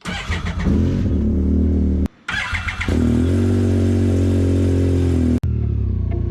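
Side-by-side engine revving, its pitch gliding up and down, in two clips cut hard together. About five seconds in it is replaced by music with a steady tick.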